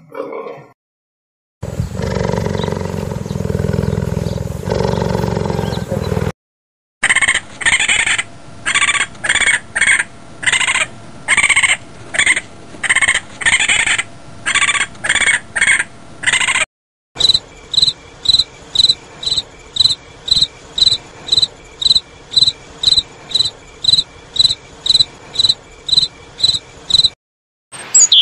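Three separate animal sounds in turn. First a low rumbling sound from a cheetah lasting about five seconds. Then a raccoon's repeated calls, about one and a half a second, and after that a cricket chirping evenly, about two high chirps a second.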